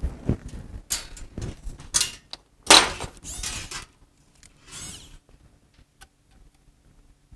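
Handling noises from wires and tools being picked up and worked: a run of small knocks and clicks, a louder scraping rustle about three seconds in, and a fainter rustle near the five-second mark.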